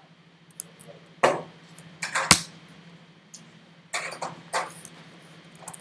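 A few irregular clicks and taps from a laptop keyboard during code editing, one sharper knock about two seconds in, over a faint steady low hum.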